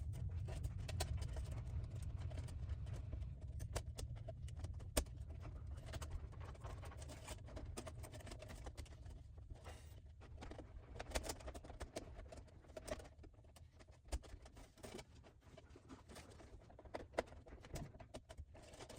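Scattered light clicks, ticks and scrapes of a ground wire being bent and pushed into place among the conductors of an electrical panel, over a low steady rumble.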